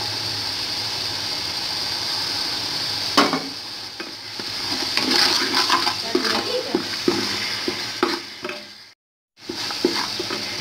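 Oil sizzling steadily as onions and whole spices fry in a pot. From about three seconds in, a wooden spatula knocks and scrapes against the pot in an irregular clatter while stirring. The sound cuts out briefly near the end, then the sizzling resumes.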